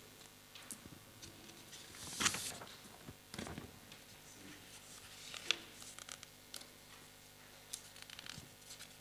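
Rustling and light clicks of small objects and paper being handled, with a longer rustle about two seconds in, another about three and a half seconds in, and a sharp click about halfway through.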